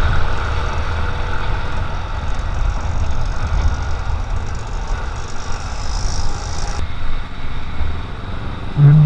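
Yamaha MX King 150's single-cylinder four-stroke engine running as the motorcycle rides slowly, under a steady low rumble of wind and road noise.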